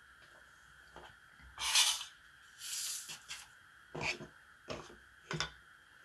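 Light taps and knocks of a plastic flower pot and a wooden rod being handled and set down on a tabletop, a few separate knocks in the second half, with two short breathy rushes of noise a couple of seconds in.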